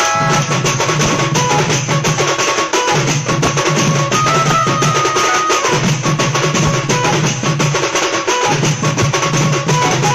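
Instrumental passage of a Sambalpuri song: fast, dense drumming over a pulsing bass, with a melody of long held notes and no singing.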